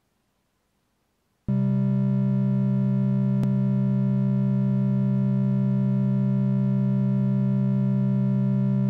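Near silence, then about a second and a half in a synthesizer drone starts abruptly: a low, steady sustained chord that holds without changing. A short click about three and a half seconds in.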